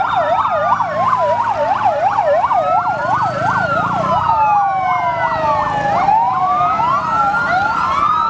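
Several fire truck sirens sounding together. A fast yelp rises and falls about three to four times a second, overlapped by slower wails that sweep down and back up over a few seconds.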